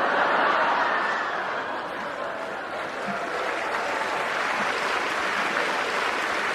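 A large audience laughing and clapping.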